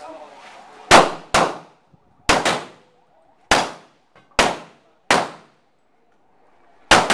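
A string of about eight handgun shots fired at an uneven pace, with a quick double near the end, each shot ringing off the range walls.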